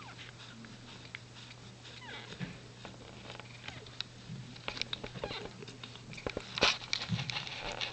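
Cat giving birth, with a faint short cry about two seconds in, then soft rustling and clicking of movement that grows louder in the second half, over a steady low hum.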